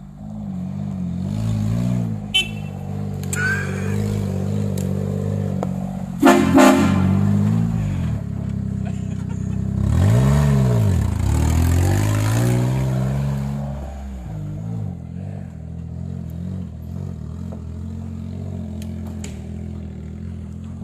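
Mitsubishi Minicab mini truck's small three-cylinder engine revving up and down as it is driven. About six seconds in, its train horn gives one short, loud blast. Around ten seconds the engine revs rise and fall again in a strong swell.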